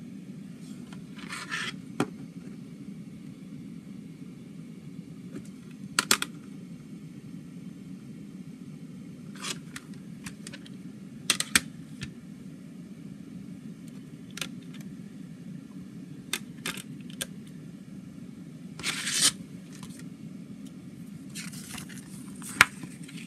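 Plastic CD jewel case being handled and opened: about ten sharp plastic clicks and snaps, with a few short scrapes and rustles, the loudest click near the end. A steady low hum runs underneath.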